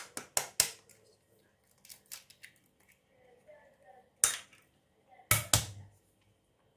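Eggshells cracked against a glass bowl: a quick run of four sharp cracks at the start, then a loud single crack about four seconds in and two more close together a second later.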